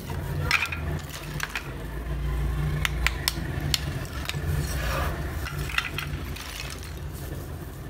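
Thin, brittle slabs of roasted multani mitti (fuller's earth clay) clinking and scraping against each other as they are picked up and shifted in a heap. The sound is an irregular scatter of sharp clicks over a low, steady background rumble.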